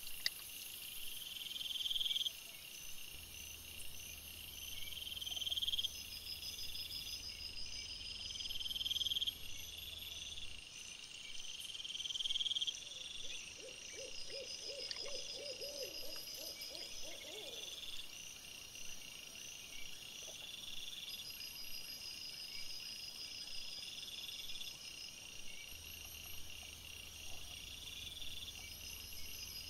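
Night insects chirping steadily in a repeating pattern, a rising chirp every two to three seconds over a higher pulsing trill. About midway, a short rapid series of lower-pitched animal calls.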